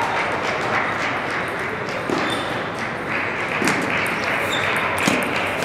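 Table tennis ball clicking on paddles and the table in a rally, irregular sharp ticks, over a steady background hubbub of a busy hall.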